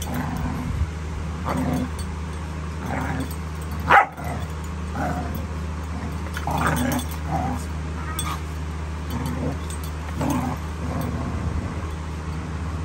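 Puppies play-fighting with a bigger dog, giving short, scattered barks and cries, one louder about four seconds in.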